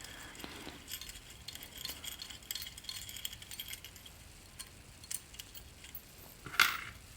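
Light metallic clinking and rattling of hand tools being rummaged through in search of a wrench, with one louder, short clatter near the end.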